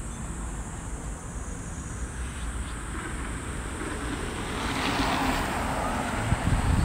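A car passing close by, its tyre and engine noise swelling about two-thirds of the way in, over a steady low rumble.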